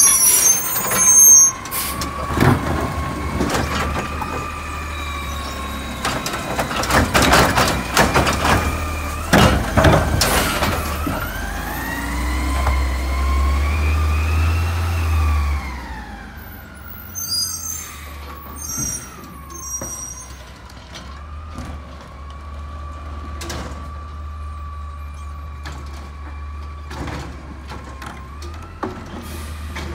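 Automated side-loader garbage truck with a natural-gas engine at work: the engine rumbles under a hydraulic whine that rises and falls in pitch, with several loud bangs of a cart being lifted and dumped in the first ten seconds. The whine climbs and then drops back as the truck pulls away, then runs on steadily and quieter.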